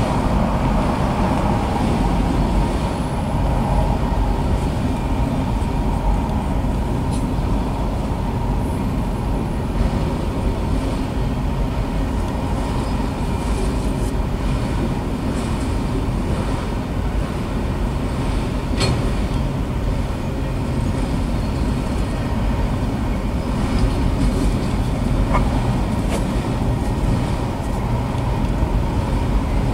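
Autorack freight cars rolling past: a steady low rumble of steel wheels on the rails, with a faint steady high tone under it and a single sharp click about two-thirds of the way through.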